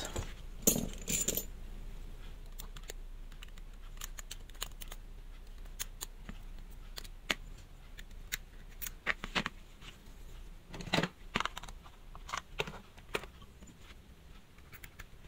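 Small metallic clicks and taps of tweezers working inside an open quartz watch and against its steel case, scattered irregularly, with a cluster about a second in and a few louder taps later on.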